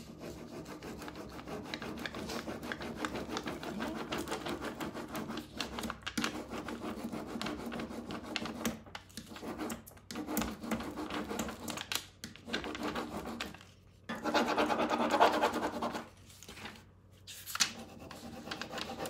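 Small hand applicator tool rubbing a rub-on decor transfer sheet onto a painted furniture panel: rapid, continuous scratchy rubbing strokes, broken by a few short pauses, with a louder stretch of rubbing about two-thirds of the way through.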